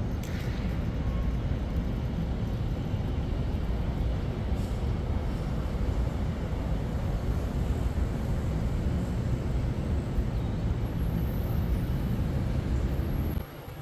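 Steady low rumble of outdoor background noise that cuts off suddenly near the end.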